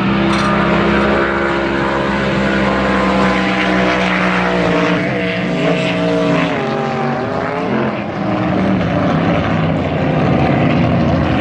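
Racing boat engines running loudly, several engine notes at once. Their pitch shifts up and down and crosses between about five and eight seconds in.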